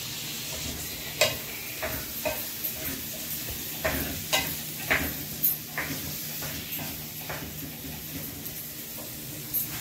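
Wooden spoon stirring chickpeas frying in an aluminium pot, with irregular knocks and scrapes against the pot over a steady sizzle. The first knock is the loudest.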